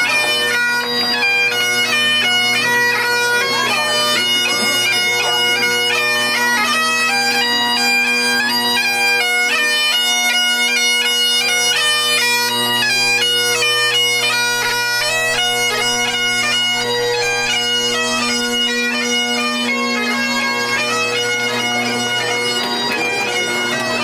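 Bagpipes playing a tune: steady low drones held under a melody of quick stepped notes on the chanter.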